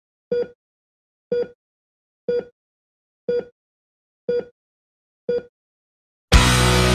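Heart-monitor beep sound effect: six short identical beeps, about one a second. Near the end, loud music starts suddenly.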